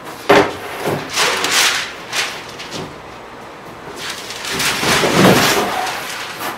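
Large sheets of tempered hardboard (Masonite) being handled on a workbench: a sharp knock a moment in, then scraping and rubbing as a sheet slides over the bench, with a longer, louder stretch of scraping and rumbling around five seconds in as a long sheet bends while it is lifted.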